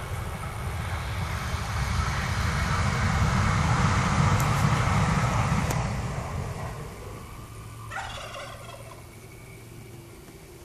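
1979 Corvette windshield wiper motor making a strange noise: a rough, noisy running sound that builds over the first few seconds and dies away after about seven, then a brief higher-pitched squeal about eight seconds in.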